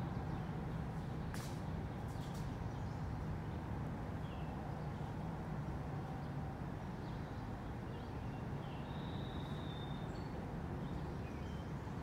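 Outdoor ambience: a steady low rumble with a few faint high bird chirps and one short held whistle near the end.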